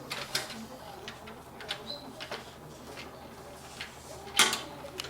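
Scattered small clicks and metallic taps, with one sharper click about four and a half seconds in, as screws and expansion-slot covers are taken out of the back of a PC case.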